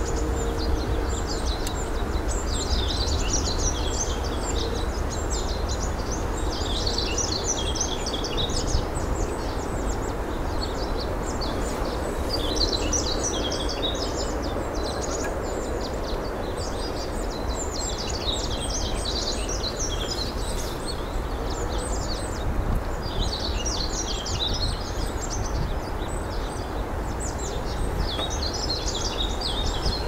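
Many small birds chirping and twittering in repeated bursts over a steady low rumble of wind and riding noise from a moving bicycle.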